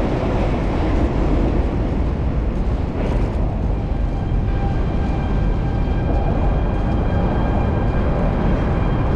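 Heavy, steady rumble of wind buffeting the microphone mixed with loud waterfront construction noise. About four seconds in, a steady high mechanical whine joins and holds for several seconds.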